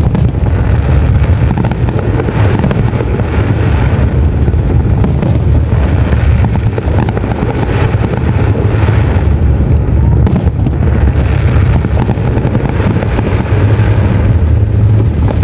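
Professional fireworks display firing a dense, unbroken barrage: aerial shells bursting in quick succession with sharp cracks and crackle over a continuous low rumble.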